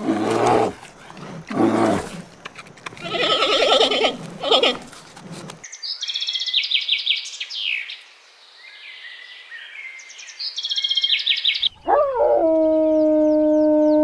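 Animal calls in turn: loud harsh calls with a wavering pitch, then high bird chirping, then one long steady held call that rises at its start, about twelve seconds in.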